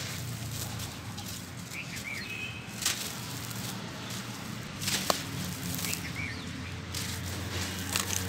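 Dry sand-cement block crumbling in the hands and its powder pouring into a tub of loose cement dust: a gritty, sandy hiss, with a few sharper crunches about three, five and eight seconds in.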